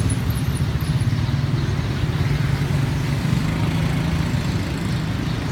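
Steady low hum of motor traffic and idling engines on the street.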